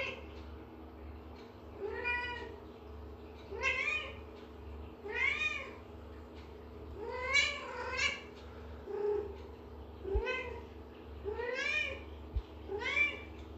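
Domestic cat meowing over and over: short calls that rise and fall in pitch, about one a second, some in quick pairs.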